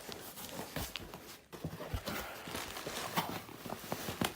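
Cardboard box and packaging being handled and opened: irregular knocks and taps with rustling.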